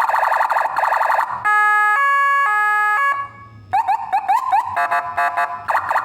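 Landun 100DA electronic vehicle siren cycling through its tones. It starts with a fast pulsing warble, then two alternating tones high and low at about two changes a second. After a brief drop come quick rising chirps, several a second, and then a stepped tone before the fast pulsing returns near the end.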